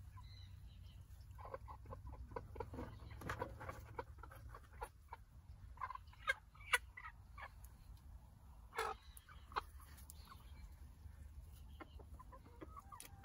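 Backyard chickens clucking softly in short, scattered calls, with a few sharp clicks and one longer, louder call about nine seconds in.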